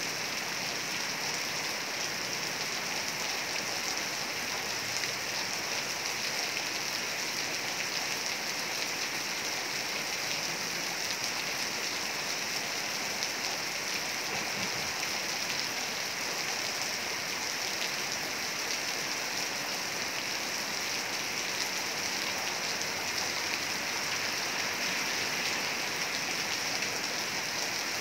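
Heavy rain falling steadily, an even, unbroken hiss of raindrops with no let-up or change.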